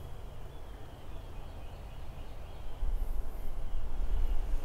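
Outdoor garden ambience: faint distant birdsong over a low wind rumble on the microphone, which grows louder about three seconds in.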